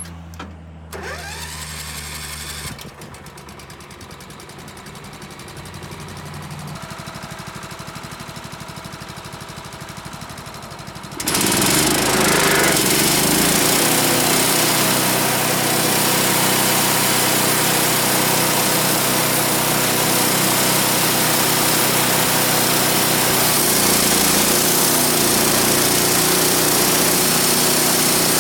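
Wood-Mizer LT15 portable band sawmill's small gas engine running, steady at first; about eleven seconds in the sound turns suddenly much louder and noisier and holds there.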